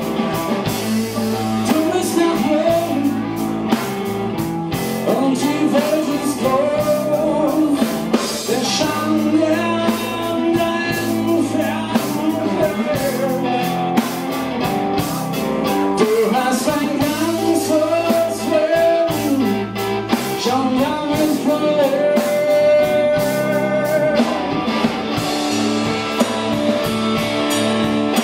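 A live rock band playing: a man singing into a hand-held microphone over electric guitar and a drum kit with a steady beat.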